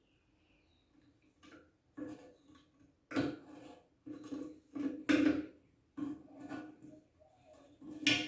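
Irregular plastic clicks and knocks from hands tightening the plastic lock nut of a toilet fill valve under the tank, with the sharpest click near the end.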